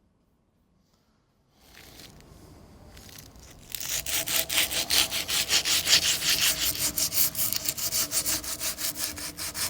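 Hand scraping or abrading on a metal wheel hub in a vise, in quick back-and-forth strokes at about four to five a second, starting about four seconds in. This is the hub's seat for the magnetic ABS sensor ring being worked clean.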